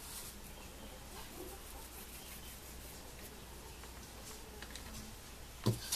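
Hands rolling and shaping soft cheese-biscuit dough, a faint soft rubbing, with a single sharp thump near the end.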